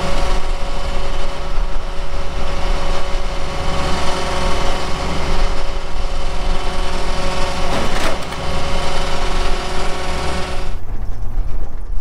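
Case IH combine running at a standstill: a steady mechanical drone with several held tones. It cuts off about eleven seconds in, leaving only a low rumble.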